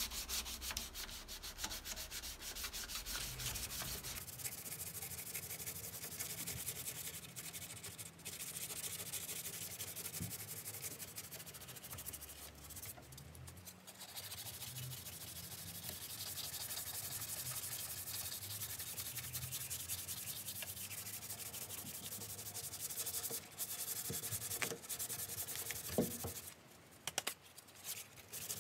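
Hand sanding of body filler on a car's steel rear quarter panel with 240-grit paper on a sanding block: a steady rasping of quick back-and-forth strokes with a few short pauses. It is the smoothing stage that takes out the coarser 180-grit scratches before primer.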